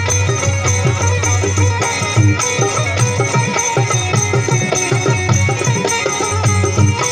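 Live Balochi folk music played on a harmonium over a quick, steady drum rhythm.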